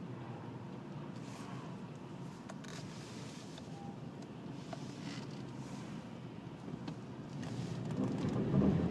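Škoda Octavia A7 on the move, heard from inside: a steady low rumble of road noise with a few faint clicks and knocks, the extraneous noises being recorded. The rumble grows louder near the end.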